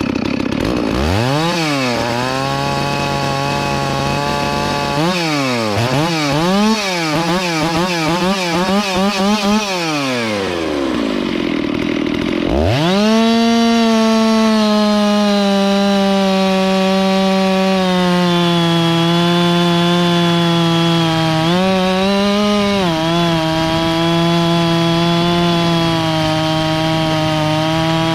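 Rebuilt Farmmac F660V two-stroke chainsaw revved up and down several times. About 12 seconds in it goes to full throttle and holds there, its pitch sagging slightly under load as a carbide-tipped chain cuts slowly into wood. The pitch dips briefly about 22 seconds in.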